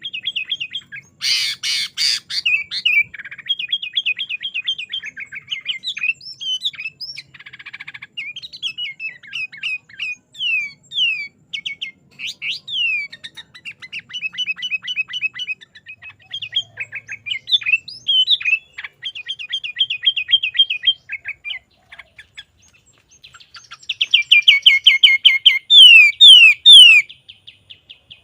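Sooty-headed bulbul (kutilang) singing busily in the 'gacor' style: a varied, chattering song of rapid trills and quick falling notes, packed with 'isian' phrases of the kind taught to songbirds. The song keeps going with short breaks, and a loud run of quick falling notes comes near the end.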